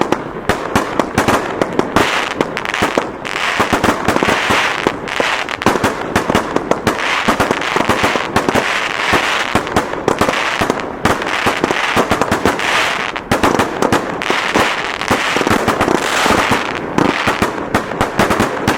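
A 72-shot finale set of six 12-shot aerial firework cakes firing all at once: rapid, overlapping launch thumps and loud shell breaks with crackle, one after another without pause.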